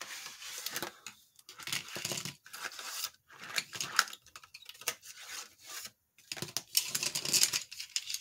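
Packaging of a pencil set being handled and opened: irregular bouts of rustling and tearing.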